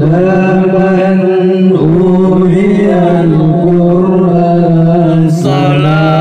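A man singing shalawat in Qur'anic recitation style into a microphone, amplified through a portable speaker: long held, ornamented notes, with a brief break and a new phrase starting near the end.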